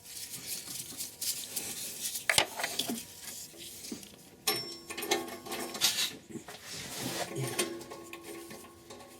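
Metal tools and parts clinking and scraping, with some short ringing tones, while a new upstream oxygen sensor is being threaded in and tightened.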